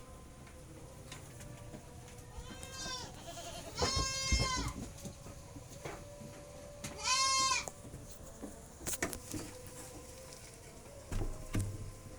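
Goat bleating three times, the second call the loudest and longest, the third short. A few knocks and a low thud come near the end.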